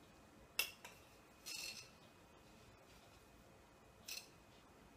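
Quiet kitchen handling of a glass jar over a stainless-steel mixing bowl: a single sharp clink about half a second in, then two brief soft hisses, the second about four seconds in as sugar is tipped from the jar into the bowl.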